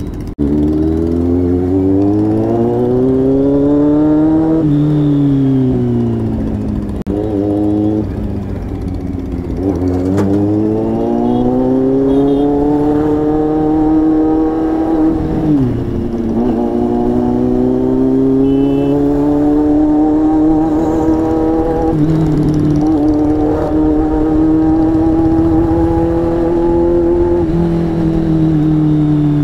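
Kawasaki inline-four motorcycle engine running under way. The revs climb over the first four seconds and fall back, climb again from about ten seconds in, and dip sharply around the middle. They then hold and creep slowly upward near the end.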